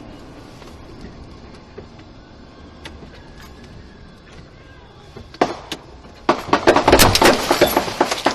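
A steady low background hum, then a few sharp knocks about five seconds in, followed by roughly two seconds of dense, loud, rapid knocking and clatter near the end.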